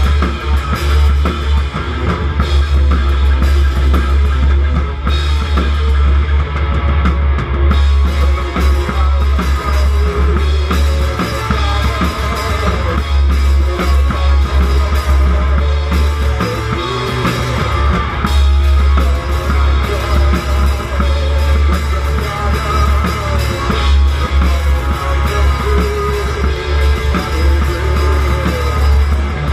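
Rock band playing live: drum kit and electric guitars, loud and continuous with a heavy low end.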